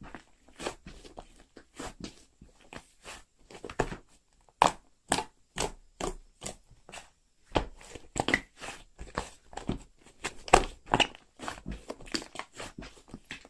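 Clear slime squeezed and pressed by hand, making irregular sharp popping clicks as air pockets burst, a few per second.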